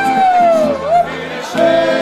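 Live accordion and guitar music with singing: a sung note slides down in pitch during the first second, then a new note is held near the end, over a steady beat.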